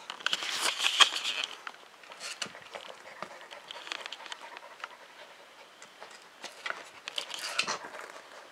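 Husky puppy scrabbling at a tennis ball under an office chair base: rustling and scratching on the carpet with light clicks, busiest at the start and again near the end.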